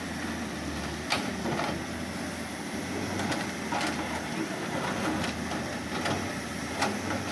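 HALLA 130 wheeled excavator's diesel engine running steadily under load while it loads broken road concrete and earth into a tractor trolley, with a few sharp knocks of bucket and debris scattered through.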